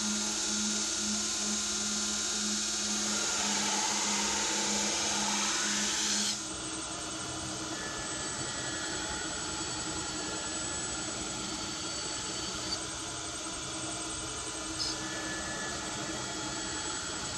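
Belt grinder running, with a Damascus steel knife blade held against the belt to grind in the bevels. A low hum pulses steadily under the grinding in the first part, and the sound drops a little about six seconds in, then carries on steadily.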